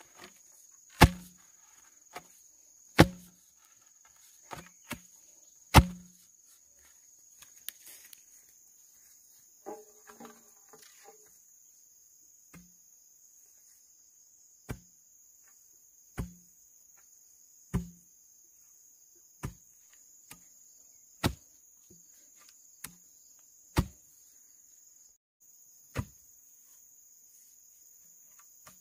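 A steady, high-pitched chorus of insects, with sharp single strikes every one to two seconds, each landing with a short dull thud. The first few strikes are the loudest.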